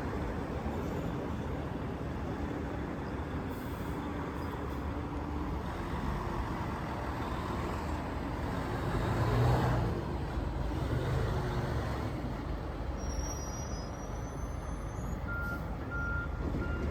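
Heavy fire truck's diesel engine running steadily amid city traffic noise, with a swell in loudness about halfway through. Near the end a reversing alarm starts beeping, about two beeps a second.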